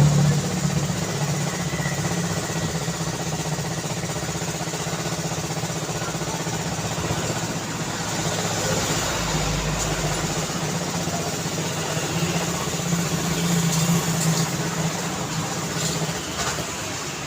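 Road traffic: vehicle engines running and passing in a steady wash of noise, swelling louder for a few seconds around two-thirds of the way through.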